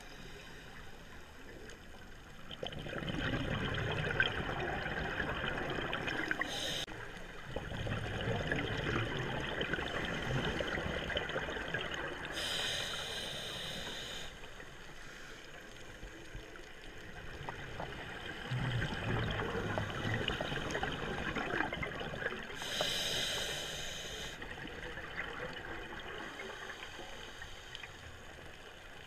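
A scuba diver breathing through a regulator underwater. Long bubbling exhalations alternate with short hissing inhalations, one breath about every ten seconds.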